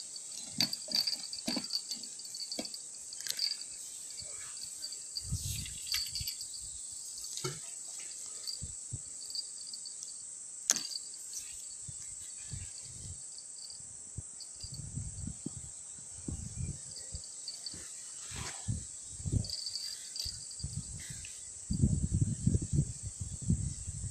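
Steady high insect drone, with a pulsing chirp that comes and goes. Low knocks, rustles and clicks from handling near the microphone come through it, loudest near the end.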